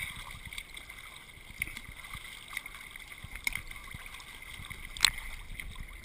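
Seawater splashing and lapping against a camera held at the surface by a swimmer, with a few sharp splashes, the loudest about five seconds in.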